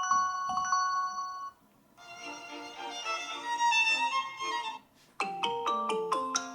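Huawei P20 Pro built-in ringtones playing one after another, each cut short. A chime phrase of repeated ringing notes stops about a second and a half in. After a short gap a fuller, many-note melody plays until nearly 5 seconds in, and then a new tune of struck notes begins.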